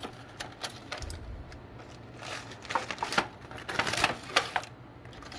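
Aluminum foil crinkling and rustling in irregular crackles as a foil-wrapped brisket is opened and handled, busiest from about two seconds in.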